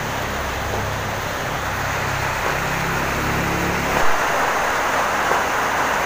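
Steady background hiss with a low droning hum that cuts off about four seconds in, followed by a short knock.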